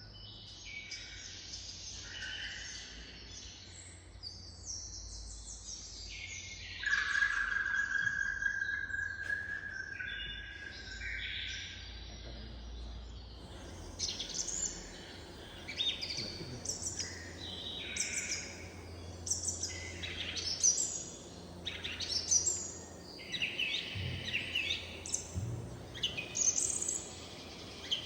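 Recorded birdsong played back in a sound-and-image art installation: a mix of chirps and whistled calls, with a long steady whistled note about seven seconds in, then quicker, louder calls through the second half. A faint low hum lies underneath.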